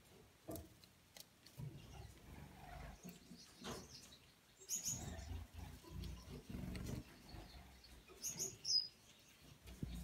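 Small finches giving short, high chirps: a few notes about five seconds in and a louder cluster of three or four near the end. Faint low rumbles and knocks lie underneath.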